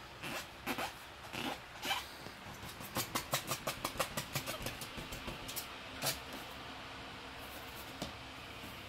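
A capuchin monkey tapping and patting a rubber balloon: a few separate knocks, then a quick run of light taps about five a second for roughly two seconds that tails off, and one last tap a second later.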